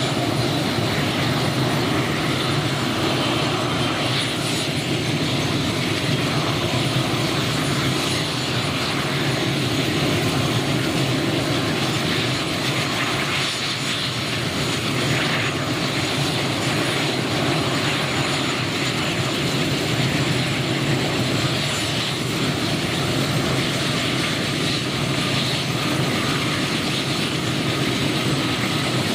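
Kamov Ka-32 coaxial-rotor helicopter's twin turboshaft engines running steadily on the ground after start-up, with its two rotors turning; a continuous, even engine and rotor noise.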